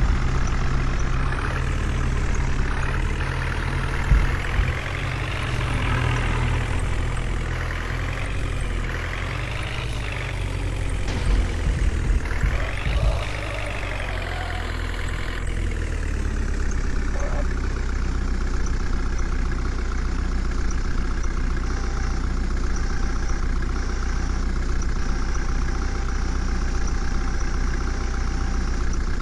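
JCB 3DX backhoe loader's diesel engine working under load, its pitch rising and falling again and again through the first half, with a few knocks, then settling into a steady run.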